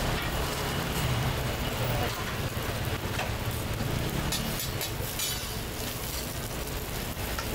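Steady low rumble with crackling sizzle: scallion pancakes frying on a street-stall griddle, the crackle thickest about halfway through.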